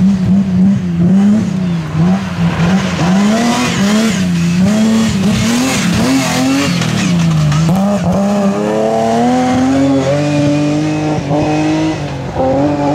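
BMW E36 rally car's engine revving up and down hard as the car is worked through a corner. About eight seconds in it pulls steadily upward, accelerating flat out with two upshifts.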